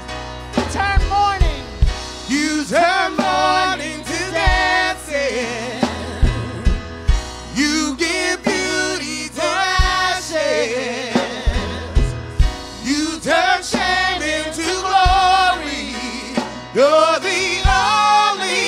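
Live gospel praise music: a woman and a man singing into microphones over a Yamaha Motif keyboard and a drum kit, with a steady kick-drum beat.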